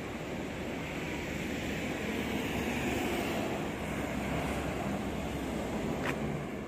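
Steady roadside noise of vehicles, a little louder in the middle, with one short click about six seconds in.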